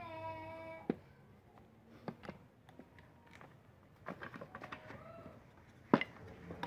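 A cat's drawn-out, wavering meow trails off about a second in. Then come scattered clicks and light knocks of pine boards being handled and fitted together, with one sharp knock about six seconds in as the loudest sound. A fainter short meow comes around five seconds in.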